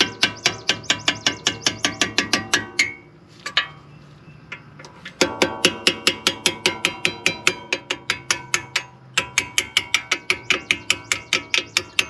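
Hand hammer rapidly tapping a 4 mm pin punch to drive the pad retaining pins out of a Brembo M-Sport brake caliper: quick, ringing metal-on-metal strikes about six a second. The tapping comes in three runs, stopping for about two seconds after the first run and breaking briefly again about nine seconds in.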